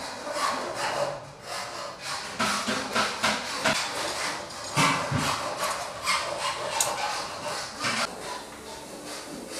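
Hands handling a steel spring collet and collet chuck nut: metal rubbing and scraping with several small clicks and knocks as the collet is fitted into the nut.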